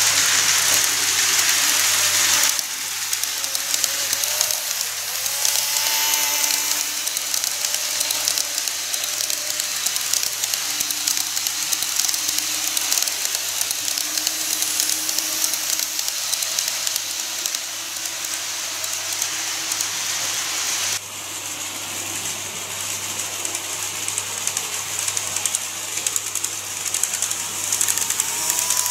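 N-gauge model electric trains running on the layout track: a steady rattling hiss of wheels on rail, with a faint motor whine that glides in pitch now and then. The sound drops in level abruptly a couple of seconds in and again about two-thirds of the way through.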